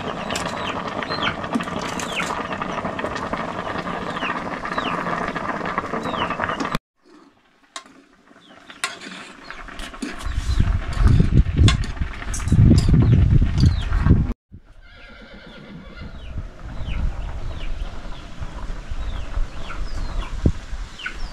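Pot of water at a rolling boil over a wood fire, a steady bubbling hiss, with short bird chirps over it. After about seven seconds it cuts off, followed by a loud low rumble and then quieter outdoor ambience with bird chirps.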